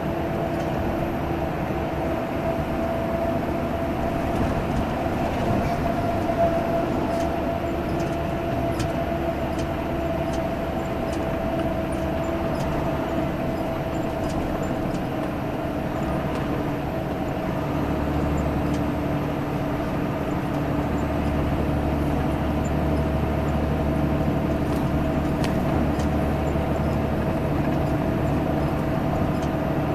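Diesel engine of a Salutaris intercity bus running steadily under way on the highway, a continuous drone. Its low rumble grows stronger and deeper about two-thirds of the way through.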